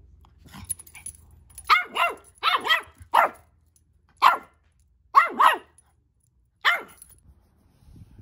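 Mini Australian Shepherd puppy, a couple of months old, barking at its own reflection in a mirror: about nine short, high-pitched barks in quick bunches.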